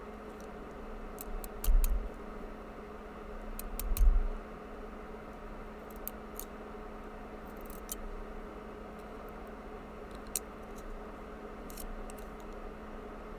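Small metallic clicks and ticks of lock pins and tweezers being handled while a pin-tumbler lock is disassembled. There are two dull thumps at about 2 and 4 seconds, over a steady electrical hum.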